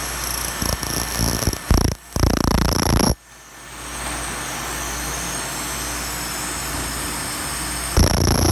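Handheld pulsed-laser cleaner ablating paint off a Harley-Davidson fender: a steady high whine over a crackling hiss. It cuts off suddenly about three seconds in, leaving a steadier rushing noise, and starts again near the end.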